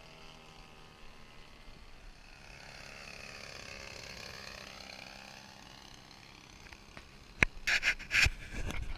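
The DLE-55cc single-cylinder two-stroke gas engine of an RC Decathlon model plane passing low by, its pitch rising and then falling as it goes past. About seven seconds in, loud knocks and rustling take over.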